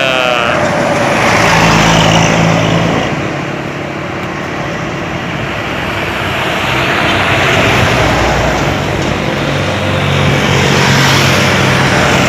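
Highway traffic with heavy diesel vehicles passing close by: an intercity bus's engine and tyre noise swell as it goes past about two seconds in, ease off, then build again near the end as another large vehicle passes.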